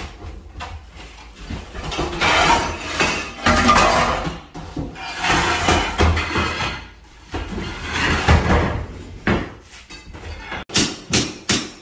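Long-handled pry bars scraping, grinding and prying old floor tiles off the subfloor, with tiles cracking and clattering loose. Near the end comes a quick run of sharp knocks as bars and tile pieces strike the floor.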